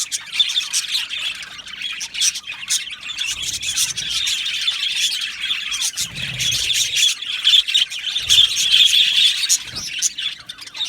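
A colony of budgerigars chattering together: a dense, continuous mix of many overlapping warbles, chirps and squawks.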